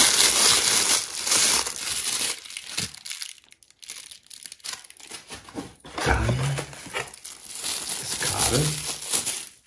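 Clear plastic packaging bags crinkling and rustling as small parts are unwrapped by hand. The crinkling is loudest in the first couple of seconds, eases off, then comes back from about six seconds in.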